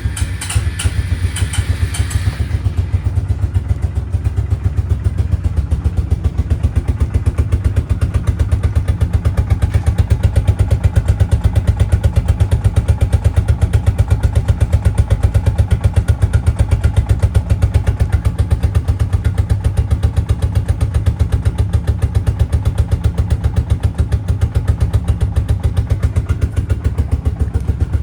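2004 Suzuki King Quad four-wheeler's engine just caught on a cold start with full choke: a brief clatter in the first couple of seconds, then it idles steadily with a rapid, even pulse.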